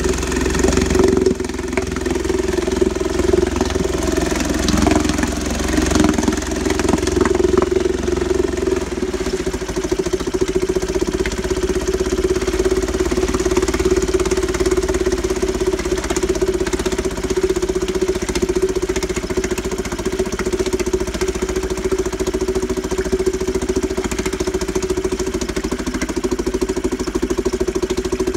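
1938 Bendix SMD 2.25 hp two-stroke outboard motor running steadily in a test barrel, its propeller churning the water.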